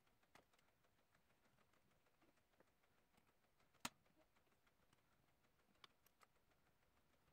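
Near silence: room tone, with a few faint small clicks, the sharpest about four seconds in.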